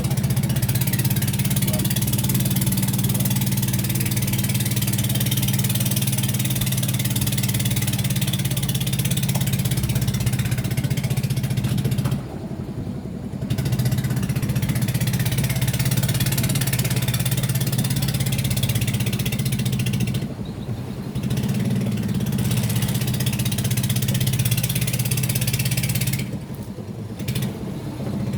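Car engine and tyre noise while driving: a steady low drone with a hiss over it. The sound drops away briefly three times, about twelve, twenty and twenty-six seconds in.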